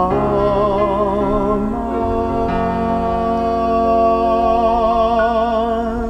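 Church hymn music: sustained keyboard chords under a melody held on long notes with vibrato, changing chord every second or two at the close of the hymn.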